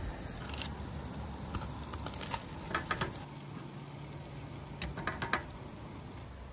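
Light clicks and crinkles of a utensil working at a salmon fillet in an aluminium foil parcel, coming in small clusters about three seconds in and again around five seconds in, over a low steady background rumble.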